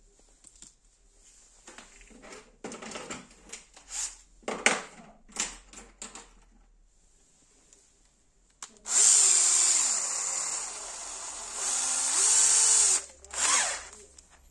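Bosch cordless drill/driver working on the amplifier's metal chassis. It runs for about four seconds with its motor speed rising and falling under the trigger, then gives a second short burst. Before that come light clicks and rattles of parts being handled.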